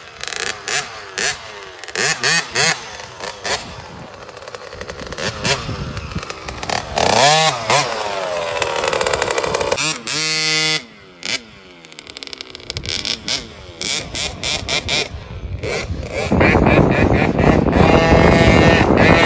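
KTM 50 mini dirt bike's small two-stroke engine revving as it rides the track, its pitch rising and falling about seven seconds in and holding a strong steady note as it passes close by about ten seconds in. Near the end a loud, even rushing noise takes over.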